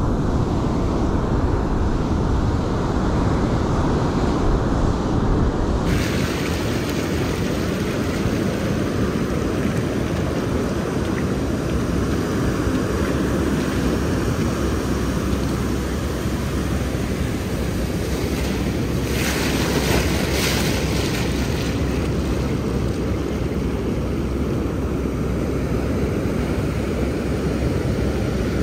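Ocean surf washing continuously onto a sandy beach, with a low rumble of wind on the microphone. About two-thirds of the way through, a brief louder hiss comes as the wash runs in.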